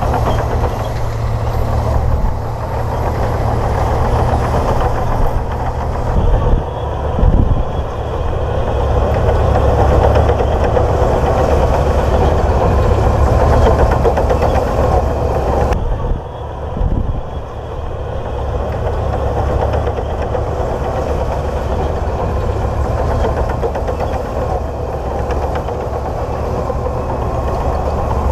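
Komatsu D58P crawler bulldozer's diesel engine running steadily under load, with a couple of heavy knocks about a quarter of the way through and a brief drop and jolt just past halfway.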